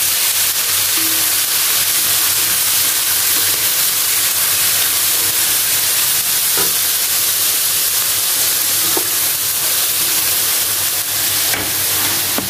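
Small sea snails and spices sizzling in a stainless steel wok over a gas flame, a steady high hiss, with a faint spatula knock twice along the way.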